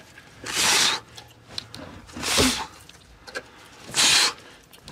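A man giving three forceful grunting exhalations about a second and a half apart, the sound of straining hard as he pushes on a rusted exhaust pipe.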